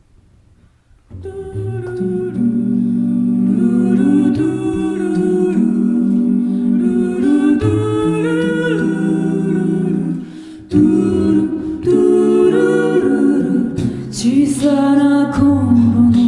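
A cappella vocal group singing a wordless intro in close harmony: held chords over a sung bass line, starting about a second in, with a short break a little past halfway.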